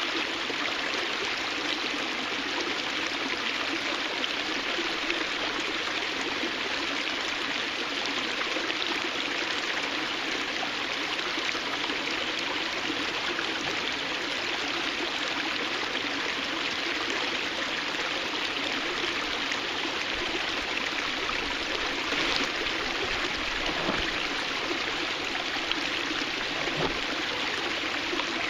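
Water of a small cascade spilling over rock, a steady, even rush with a trickling edge that never lets up.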